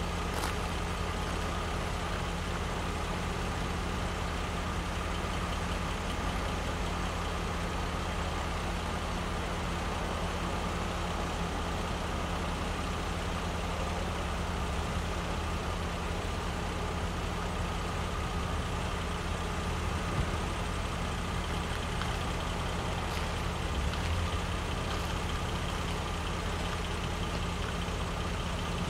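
Diesel locomotive idling steadily: a constant low engine hum with a faint steady high whine over it.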